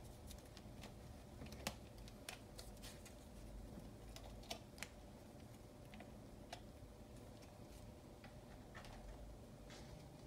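Faint, irregular clicks and light taps as a cat paws and noses at papers on a wooden box.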